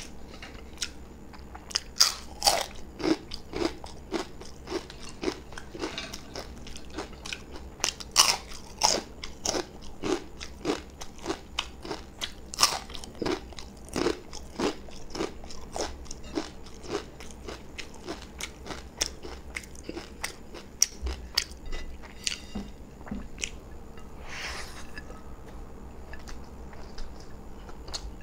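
Close-miked chewing of beef biryani eaten by hand: a quick run of wet mouth clicks and smacks, thinning out after about twenty seconds.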